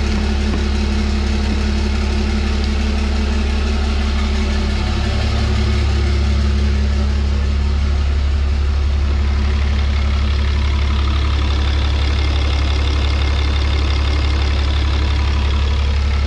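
6.7-litre Cummins inline-six turbo diesel idling steadily, shortly after its first start on a new fuel cell and AirDog lift pump; it runs smoothly. The sound grows slightly louder about five seconds in.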